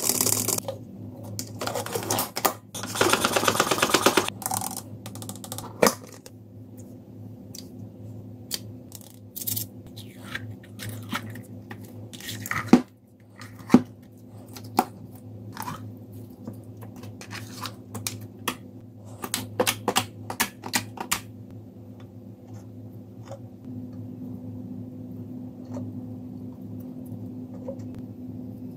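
Close-up handling of a plastic Stuff-a-Loons machine and slime: scattered clicks, taps and squishing, with a dense rattling stretch about three seconds in and two sharp knocks about halfway through, over a steady low hum.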